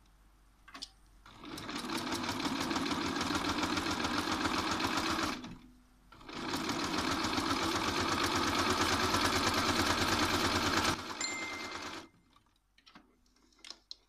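Bernina electric sewing machine stitching a straight seam through pinned fabric squares at a rapid, even stitch rate. It runs in two stretches with a pause of about a second between, and stops about eleven seconds in. A brief high tone follows, then a few light clicks.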